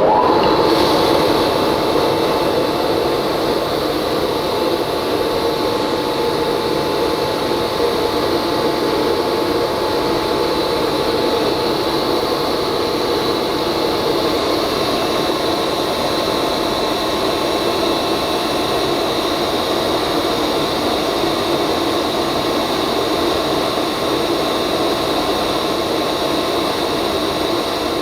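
Wieland FS 216 industrial chip-and-coolant vacuum running steadily: a loud, even motor and airflow noise with a high steady whine.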